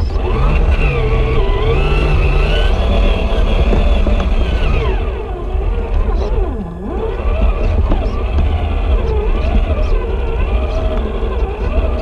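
Electric motor and gear whine of an RC scale crawler truck driving over dirt. The pitch rises and falls with the throttle, dropping low about six and a half seconds in and climbing again, over a steady low rumble.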